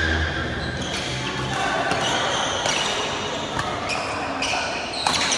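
A badminton rally: several sharp racket hits on the shuttlecock and shoes squeaking on the court floor, with a brief voice.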